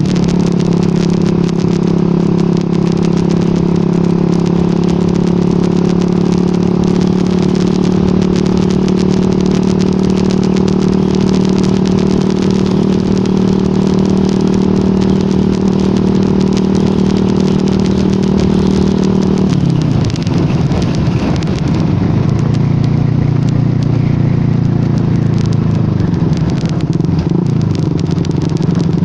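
Yamaha R15 V2's single-cylinder four-stroke engine running at a steady cruise. About twenty seconds in, its note drops and settles at a lower steady pitch.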